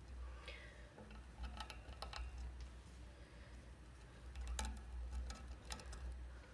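Long-haired Syrian hamster gnawing at a hanging seed treat stick: scattered sharp crunching clicks, some in quick pairs, over a steady low hum.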